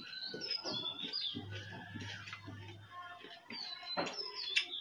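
Wet chewing and smacking sounds with fingers working rice on a plate. Birds chirp in the background in two bouts of short, high, falling chirps: one near the start and one about four seconds in.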